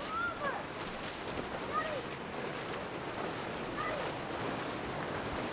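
Steady rush of a shallow river running over stones, with people wading through it.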